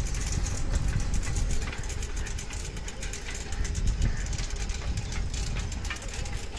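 A vehicle driving along a road: a steady low engine and road rumble.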